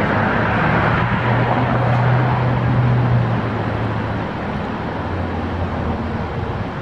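Street traffic: a motor vehicle's low engine hum over steady street noise, fading about four seconds in.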